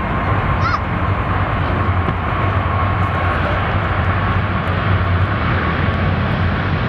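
Jet engines of a Boeing 777-300 airliner running at take-off power as it rolls down the runway: a steady, loud rumble with a thin, steady whine above it.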